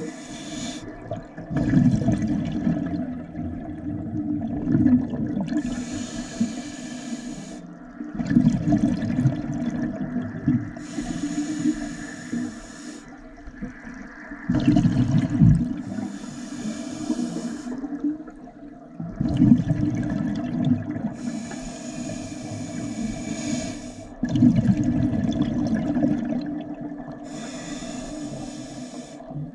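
Scuba diver breathing through a regulator underwater. A hiss with each inhalation alternates with a low rush of exhaled bubbles, about five breaths, one every five to six seconds.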